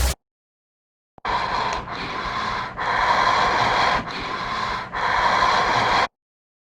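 A scary ringtone playing: a hissing sound that swells and fades in five alternating louder and softer stretches. It starts about a second in and cuts off abruptly near the end.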